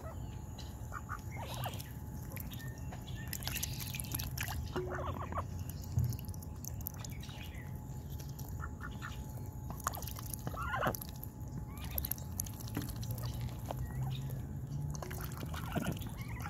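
A flock of domestic ducks foraging, with scattered short quacks and calls among clicking, wet bill sounds.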